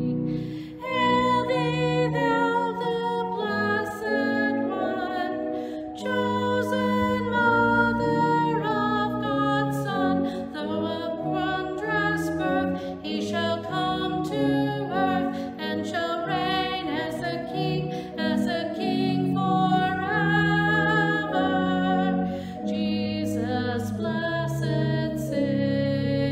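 A woman's solo voice singing with vibrato over sustained organ chords.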